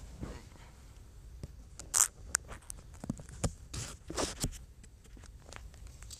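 Rustling, scraping and clicking handling noises: a sharp rustle about two seconds in, followed by a run of clicks and scrapes that dies away after about four and a half seconds.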